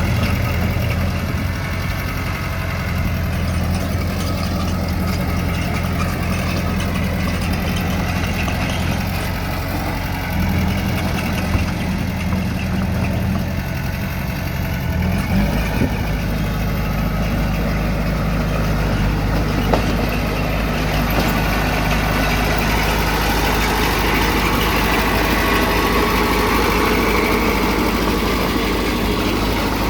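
Heavy diesel engine of earthmoving machinery running steadily, its engine note shifting about ten seconds in and again around fifteen seconds in.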